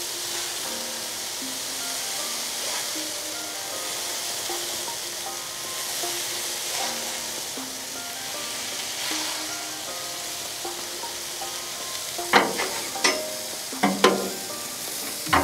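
Ground turkey patties sizzling on a hot Blackstone flat-top griddle, a steady frying hiss. Over the last few seconds several sharp knocks or taps cut through the sizzle.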